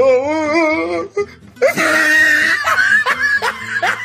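A young woman's voice: a wavering, drawn-out cry for about a second, then breathy laughter.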